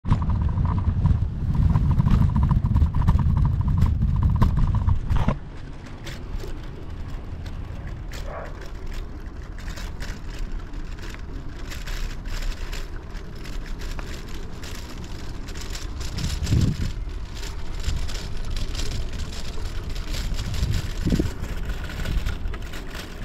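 Bicycle riding over a wooden boardwalk: steady tyre noise with frequent irregular clicks and rattles. For the first five seconds a loud low rumble of wind on the camera microphone covers it, then drops off suddenly.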